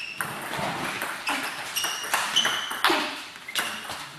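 Table tennis rally: a celluloid ball clicking sharply off rackets and the table, several hits a second, some with a short high ring.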